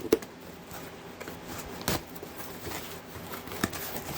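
A cardboard shipping box being handled and opened by hand: scattered rustles and scrapes, with a sharp click right at the start and a couple of duller knocks after, about two seconds in and near the end.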